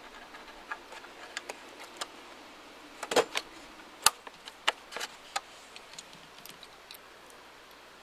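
Irregular small clicks and knocks of headlight housing hardware being handled and fitted into a plastic headlight housing. A quick cluster comes about three seconds in, then a sharper click a second later and a few more scattered clicks.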